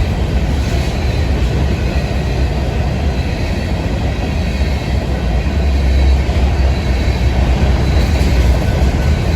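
Empty freight train rolling past, a steady loud rumble of its cars' wheels on the rails, growing a little louder about six seconds in.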